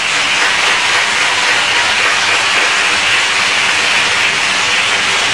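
Audience applauding: dense, steady clapping from a theatre crowd at the close of a recited poem.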